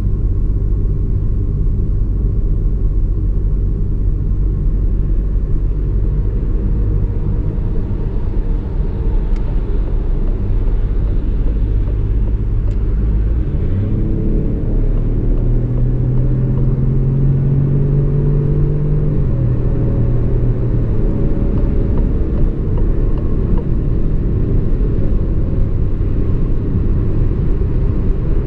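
Inside the cabin of a DS 3 Crossback with its 1.2 PureTech three-cylinder turbo petrol engine at motorway speed: a steady engine and road rumble. About halfway through, the engine note changes and climbs slowly for several seconds as revs rise, then settles back.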